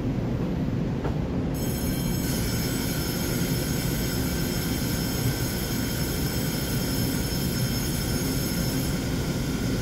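Steady low rumble on an underground railway platform beside a standing EMU900 electric commuter train with its doors open. A high, steady whine of several tones joins about a second and a half in and stops near the end.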